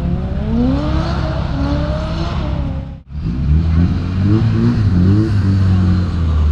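Drift car engines revving hard out of sight, the pitch climbing over the first few seconds. The sound cuts out abruptly about three seconds in, then comes back with several quick revs and settles into a steady low engine drone that grows a little louder toward the end.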